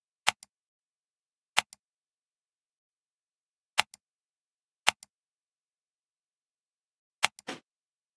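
Computer mouse clicks, five in all, each a sharp press followed a moment later by a softer release click; the last has a brief scratchy tail.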